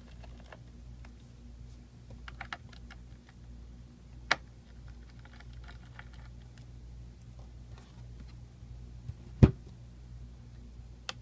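Scattered small plastic clicks and taps from hands handling the parts of an opened Alienware 17 laptop's underside, with a sharp knock about four seconds in and a much louder knock about nine seconds in.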